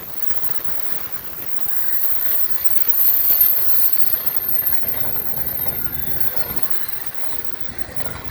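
Double-stack intermodal freight cars rolling past at about 65 mph: a steady rush of wheels on rail with a thin high squeal, loudest about three seconds in.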